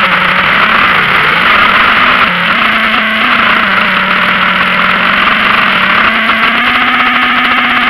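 Motor and propeller of a small radio-controlled aircraft, heard loud and close from its onboard camera: a steady droning note whose pitch dips briefly a few times as the throttle eases and picks up again.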